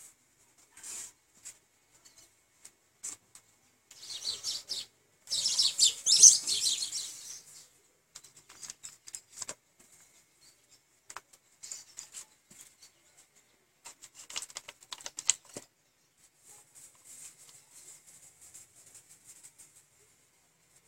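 A hand rubbing and swiping paint across a painting board in irregular scratchy strokes with a few sharp clicks. The strokes are loudest about four to seven seconds in, with another run of short strokes near the middle of the second half.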